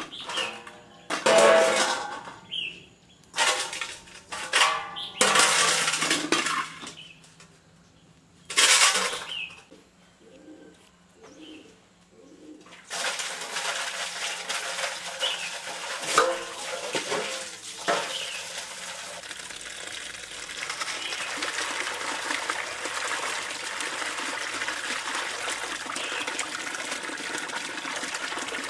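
A few loud knocks and scrapes, then from about halfway a steady rush of running water.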